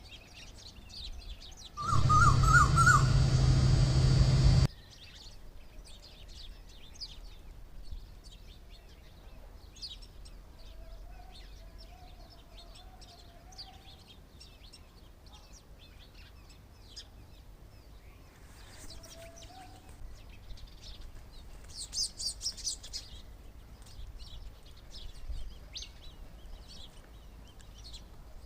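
Small birds chirping, many short high chirps throughout. About two seconds in, a loud noisy burst lasting nearly three seconds drowns them out, with a short wavering call inside it.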